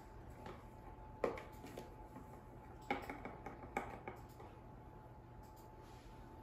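Several light, short clicks and taps as a spice jar lid is opened and a measuring spoon scoops ground cinnamon, with three sharper clicks spread over the first four seconds. Faint kitchen hum underneath.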